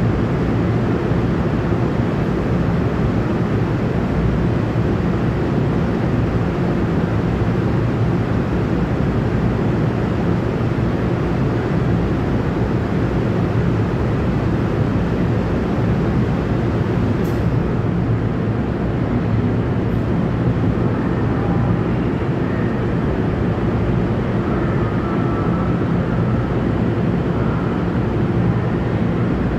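Steady low droning hum in an underground train station, with low tones held throughout as a commuter train pulls away in the distance. Faint higher tones come and go in the second half.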